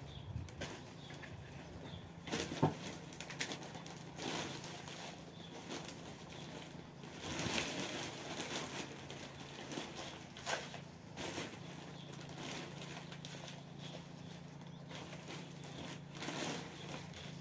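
Plastic flower pot and potting soil being handled as a plant is worked out of its pot: irregular rustling and scraping with scattered small knocks and taps.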